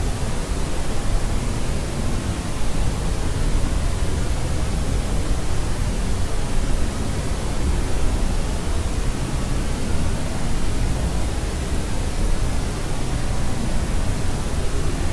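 Steady synthetic noise, an even hiss heavier in the low end like pink noise, unchanging throughout.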